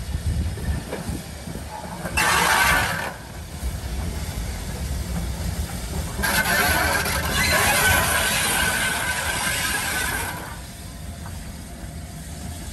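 Green GWR steam tank locomotive letting off steam: a short hiss about two seconds in, then a longer, louder hiss of about four seconds, over a low rumble.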